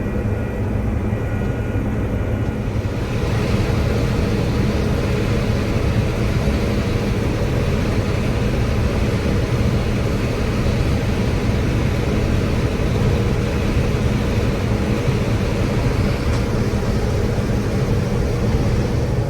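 John Deere 9760 STS combine running steadily through the last passes of corn harvest, a low engine drone with a broader rushing noise that comes up about three seconds in.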